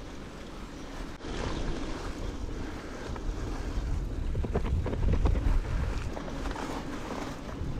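Wind buffeting the microphone: a low rumble that grows louder about a second in and is strongest a little past the middle, with a few faint clicks.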